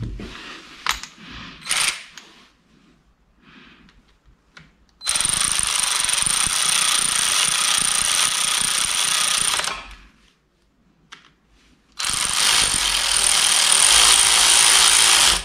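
Cordless power ratchet running bolts of a timing chain tensioner into an engine block in two long runs of about four seconds each, with a steady high whine, after a few light metal clicks at the start.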